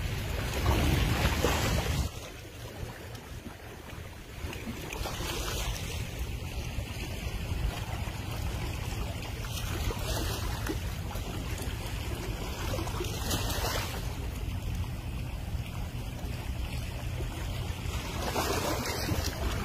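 Sea waves washing against a rocky shore, a hissing swell every few seconds, under wind buffeting the microphone that is heaviest in the first two seconds.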